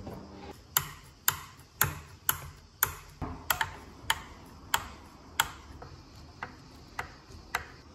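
Screwdriver driving screws through iron strips into the jack's wooden body, making sharp clicks about twice a second that space out toward the end.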